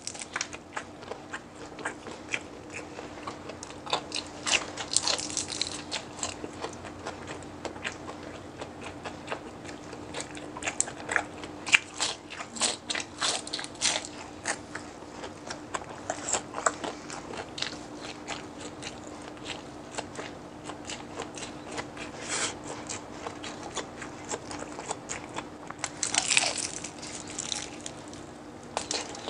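Close-up crunching bites and chewing of crispy deep-fried pork mesentery (chicharon bulaklak), with many sharp crackles that come in louder clusters, over a faint steady hum.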